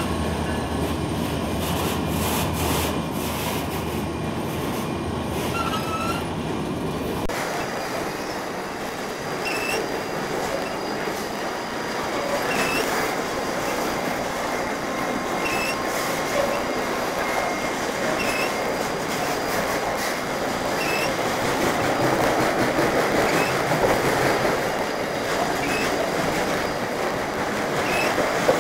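Freight train of autorack cars rolling past: a steady rumble and rattle of steel wheels on rail, with short high wheel squeaks recurring every second or two. About seven seconds in, the deep rumble drops away abruptly and the sound turns brighter.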